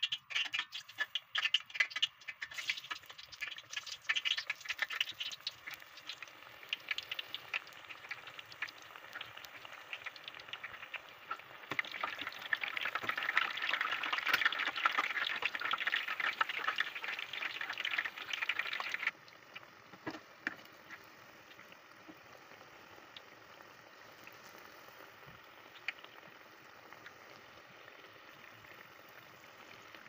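Eggplant slices frying in hot oil in a pot: dense crackling and sizzling with sharp pops, loudest between about twelve and nineteen seconds in, then dropping suddenly to a quieter, steadier sizzle with occasional pops.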